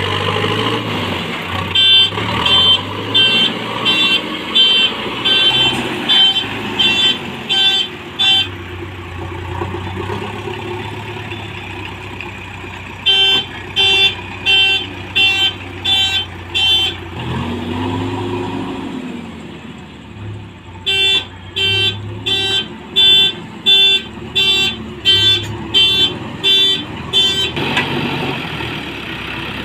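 Backhoe loader's diesel engine running, with a reversing alarm beeping about twice a second in three runs of several seconds each.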